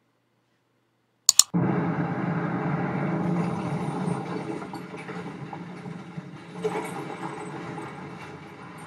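Two sharp clicks about a second in, then the soundtrack of a Hennessy commercial starts abruptly: a dense, rushing rumble, loud at first and slowly fading.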